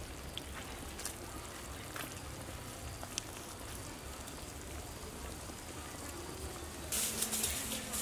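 Soup simmering in a wok: a steady bubbling hiss with a few faint pops. About seven seconds in a louder hiss rises for roughly a second.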